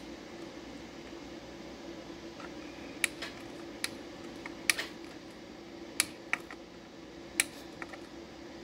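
Screwdriver working the terminal screws of a MidNite Classic 200 charge controller's terminal block: about ten sharp, irregular metal clicks, starting about three seconds in, over a faint steady hum.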